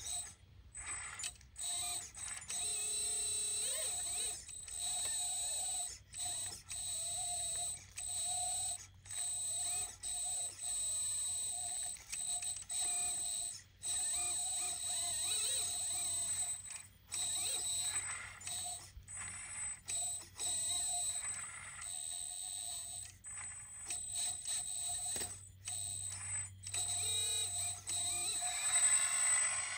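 Hydraulic pump of a 1/14-scale RC excavator running with a steady high whine, cutting out and starting again every second or two as the boom and bucket are worked.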